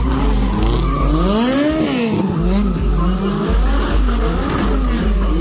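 Drift cars' engines revving up and down again and again as they slide sideways, with tyres squealing on the asphalt. The biggest rev climbs and drops about two seconds in.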